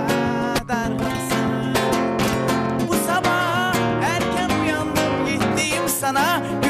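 Acoustic guitar strummed in a song's instrumental passage between sung verses, with a wavering, ornamented melody line coming in over it about halfway through.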